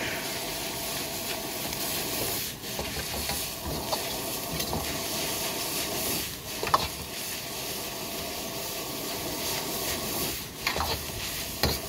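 Fried noodles and vegetables sizzling in a hot wok while a metal ladle stirs and scrapes them around the pan, with a few sharper clicks of the ladle against the wok.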